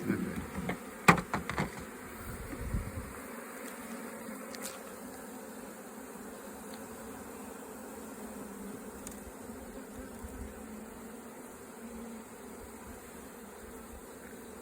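Honeybees buzzing in a steady hum around an opened hive during a brood frame inspection. A few sharp knocks come in the first three seconds.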